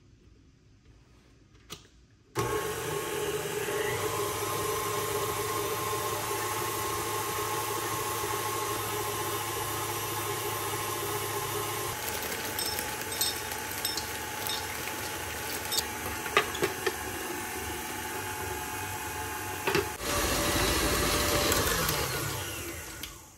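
Electric kitchen mixer running steadily while mixing cookie dough, starting suddenly about two seconds in, with a few light clicks partway through and a louder, rougher stretch near the end before it stops.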